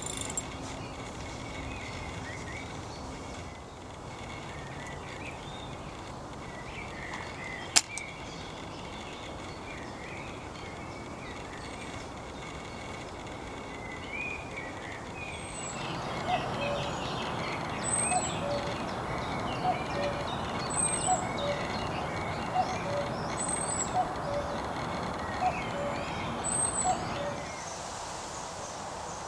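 Outdoor woodland ambience with small birds singing and calling. A single sharp click comes about eight seconds in. From about halfway, a louder rushing sound with faint, regularly repeating chirps runs to near the end.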